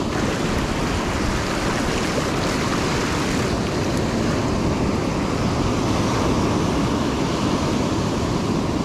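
Ocean surf breaking and washing up a sandy beach, a steady rush of water with wind on the microphone.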